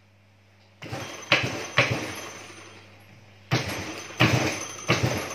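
Sharp metal clanks, each ringing briefly, in two groups of three about two seconds apart: a steel bar knocking against a lawn mower blade and spindle shaft clamped in a vise, as the blade is forced to come off the shaft and will not give.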